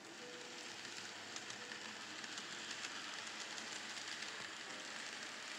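N scale model train, an Amtrak F40PH locomotive model hauling passenger cars, rolling past on the track: a light, steady rattle and hiss of small wheels and motor with fine clicks. It gets louder over the first second or so and then holds.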